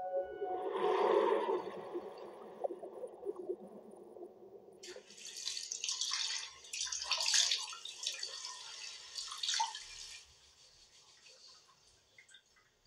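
Water running into a bathtub, then shut off about ten seconds in, leaving scattered drips.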